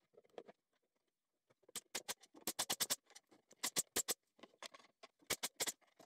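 Pneumatic brad nailer and plywood parts: quiet, sharp clicks in quick clusters of four or five, starting about two seconds in, as the drawer runners are fitted and nailed.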